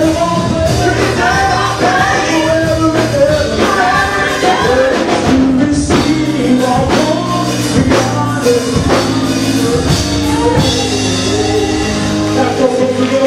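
Live gospel worship song: a lead singer and backing vocalists singing over a band with electric bass guitar and drum kit.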